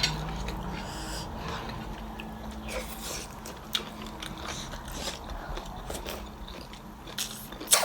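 Close-up mouth sounds of someone biting and chewing meat, with scattered small sharp clicks.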